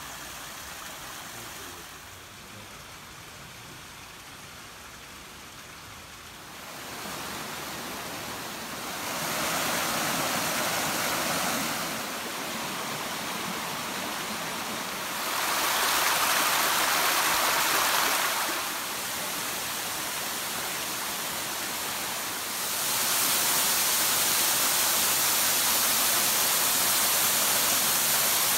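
Running water from a mountain stream and small waterfalls, a steady rushing whose level jumps up and down every few seconds. It is loudest near the end, where a small waterfall pours into a shallow rocky pool.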